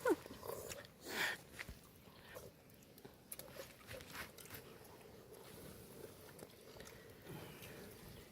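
A person chewing and biting food, with scattered soft crunching and mouth noises. A brief falling whine sounds right at the start.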